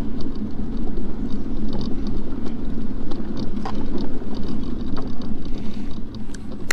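Off-road electric mobility scooter driving over a bumpy dirt path: a steady motor hum and rumble, with scattered small rattles and knocks from the bumps.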